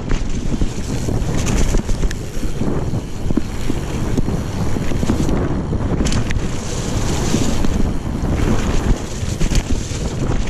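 Wind rushing over the microphone and the rumble of a mountain bike riding fast down a dirt trail, with frequent knocks and rattles as it runs over bumps.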